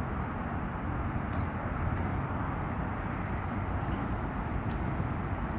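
Steady outdoor background noise: a low, fluctuating rumble with hiss above it, and a few faint clicks.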